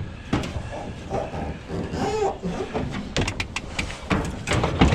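A string of knocks and clicks, with a louder knock near the end.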